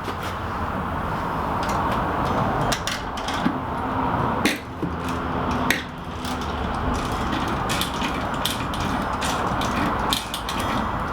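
Scattered sharp clicks and knocks of heavy equipment being handled over a steady rushing noise.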